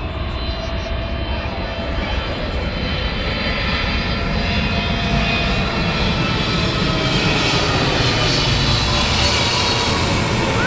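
Air France Boeing 777 on final approach with gear down, passing low overhead: a jet engine roar with faint whining tones, growing steadily louder as the plane comes over.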